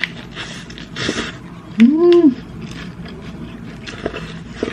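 A person eating: short rustling, crunching noises, with a short hummed "mm" near the middle that rises and falls in pitch, the loudest sound here, and a couple of small clicks near the end.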